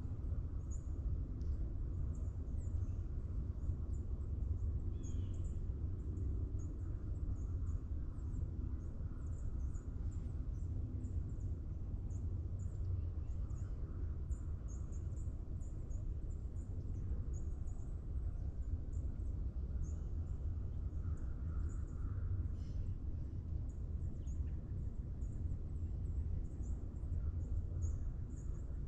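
Morning forest ambience: many small birds chirping in short, high-pitched notes, with a few lower calls about two-thirds of the way through, over a steady low rumble.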